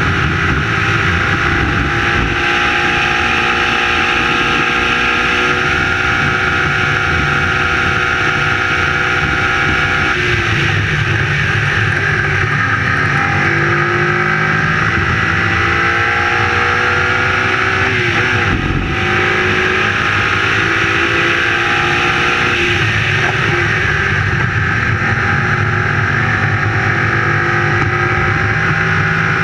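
Onboard sound of an open-cockpit prototype racing car at race pace, its engine pulling hard with the pitch repeatedly climbing and falling as it runs through the gears. The note drops steeply about a third of the way in and breaks off briefly about two thirds of the way in before rising again.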